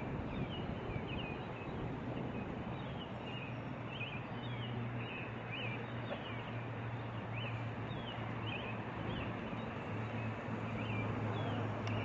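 Outdoor ambience: a steady hiss with a low hum under it, and small birds chirping in short high notes about once a second.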